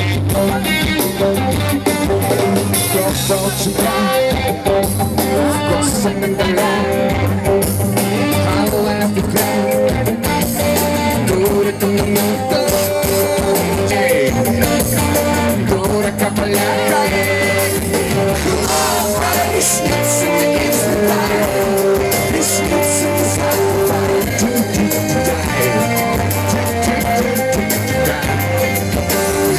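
Live pop-rock band playing through a PA: electric guitar, bass and drums keeping a steady beat, with a man singing.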